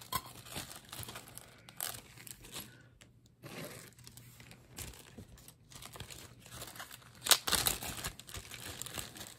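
Plastic packaging crinkling and rustling as jewelry is handled, with scattered light clicks; the loudest rustle comes about seven seconds in.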